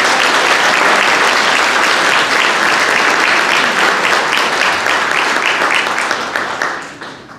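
Audience applauding, a dense steady clapping that thins out to a few separate claps and dies away near the end.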